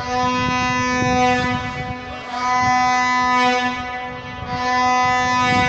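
A horn blown in one long steady note, held for about five and a half seconds with slight swells in loudness, over a low rumble.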